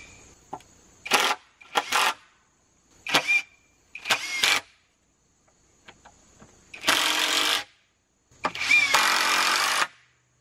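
Cordless driver driving screws into treated pine boards. A run of short trigger pulls, each with a brief rising whine of the motor, is followed by two longer runs about seven and eight and a half seconds in as screws are driven home. Crickets chirp faintly and steadily behind it.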